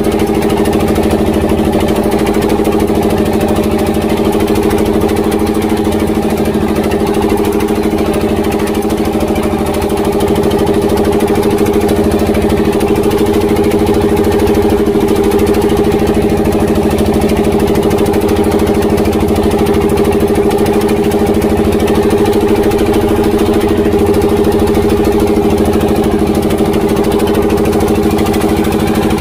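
Tianli 1115 single-cylinder diesel inboard engine running loud and steady, driving a small wooden boat under way at sea.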